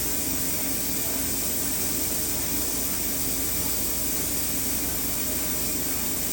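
Okuma MA-12500H CNC horizontal machining center running: a steady hiss with a constant low hum underneath.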